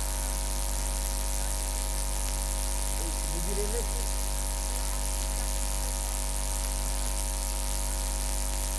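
Steady electrical mains hum with a hiss from the microphone and sound system, unchanging throughout, with a faint brief voice about three seconds in.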